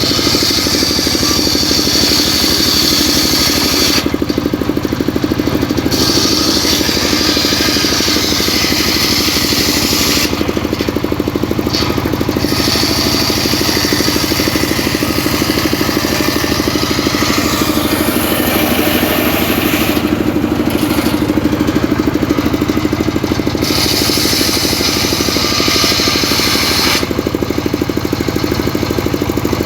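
Homemade engine-driven circular saw cutting mahogany: a steady engine drone underneath, with the blade's high cutting hiss coming and going as the wood is fed through and briefly dropping out about four times between cuts.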